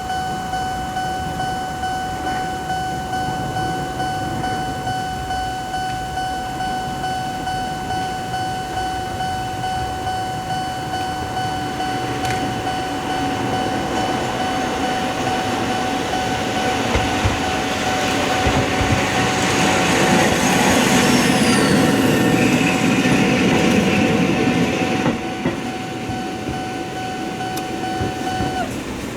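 Japanese level crossing warning bell ringing steadily while a train passes; the train's noise swells from about halfway and is loudest in the last third, with a few brief high squeals. The bell stops shortly before the end.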